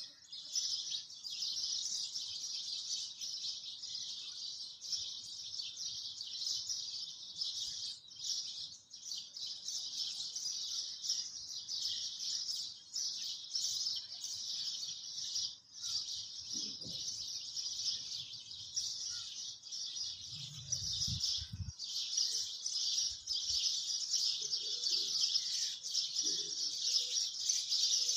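A dense, steady high-pitched chirping chorus, with a few brief low thumps about twenty seconds in.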